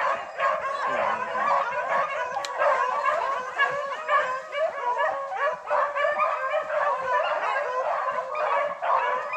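A pack of rabbit-hunting dogs baying nonstop on a running rabbit's trail, many voices overlapping.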